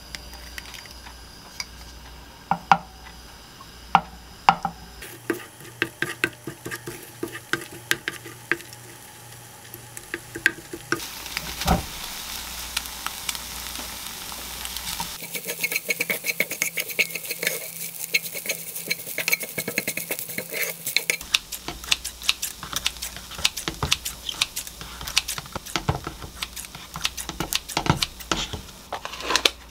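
An egg frying in a nonstick pan with a steady sizzle, then a wooden spatula scraping and tapping against the pan as scrambled egg and konjac rice are stirred together, with many sharp clicks throughout. Near the end, scissors snip cup noodles in their cup.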